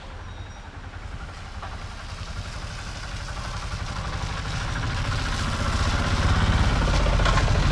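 A motor vehicle's engine with a fast, even low throb, growing steadily louder as it draws near.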